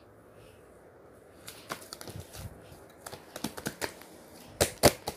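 A run of irregular sharp clicks and taps, starting about a second and a half in and getting louder and closer together near the end.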